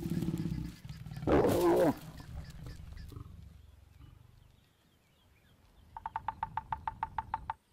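A lion growls and then gives a loud snarl in the first two seconds. After a pause, near the end, a woodpecker pecks on a dead tree trunk in a quick, even run of about fourteen taps, roughly nine a second.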